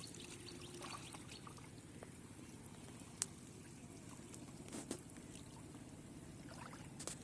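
Faint trickling of shallow water, with a few small ticks and one sharp click about three seconds in.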